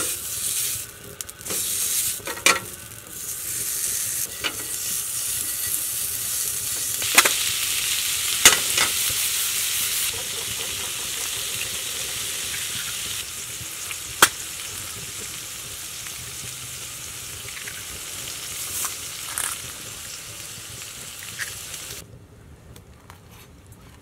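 Bacon sizzling and frying in a hot grill pan on a wood stove, a steady hiss broken by a few sharp clicks as the pan and bacon are handled. The sizzle stops suddenly near the end.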